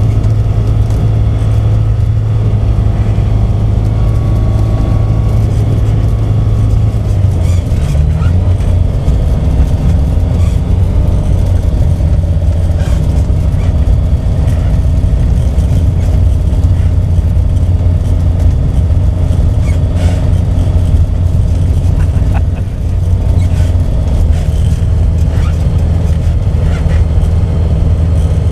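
Propeller engine of a taildragger ultralight running steadily while the aircraft rolls along a grass strip, heard from inside the cockpit. The engine speed rises slightly about 8 seconds in.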